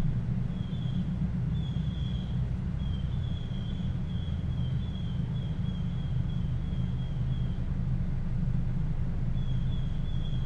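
Steady low rumble of wind on the microphone and a moving car, partly filtered out, with a faint high chirping repeated about twice a second through much of it.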